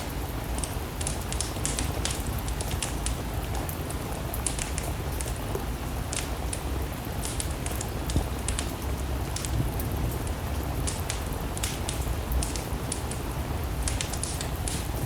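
Steady rain together with a wood fire in a fireplace, with frequent small sharp crackles and pops over a low steady rumble.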